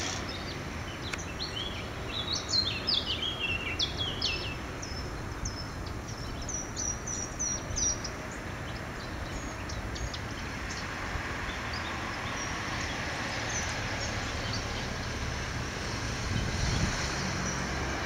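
A small songbird singing quick runs of high chirps through the first half, over a steady low rumble of outdoor background noise.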